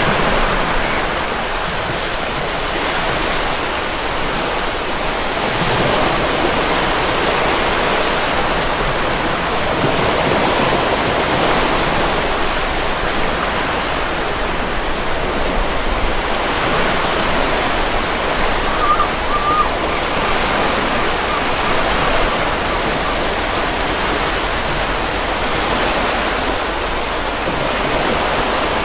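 Stormy ocean surf: waves breaking and washing in a dense, continuous rush of water that swells and eases every several seconds.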